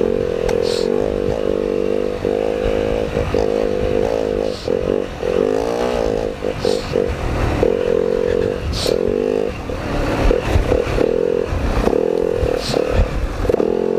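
Four-stroke dirt bike engine at low speed, its revs rising and falling with the throttle, with clatter over rough ground. Brush scrapes past several times.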